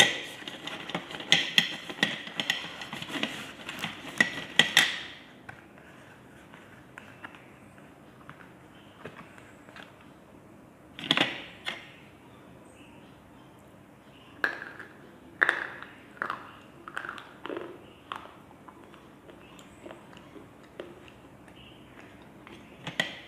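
Slate pencils clattering onto a plate as a box of them is tipped out: a dense rattle of clicks for about the first five seconds. Then scattered single clicks and short runs of taps as pencils are picked up and set down on the plate.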